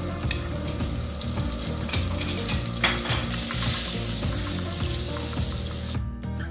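Butter sizzling as it melts and foams in an aluminium pot, with a silicone spatula stirring and tapping against the pot. The sizzle grows stronger about halfway through and cuts off suddenly near the end.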